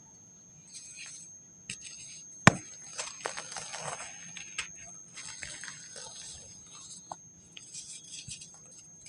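Dry compacted sand breaking apart and crumbling in a run of short gritty crunches and trickles, with one sharp snap about two and a half seconds in.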